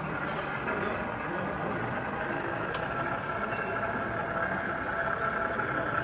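Model BR Class 08 diesel shunter running along the track, giving a steady whine that grows louder about halfway through, over the low murmur of a crowded exhibition hall.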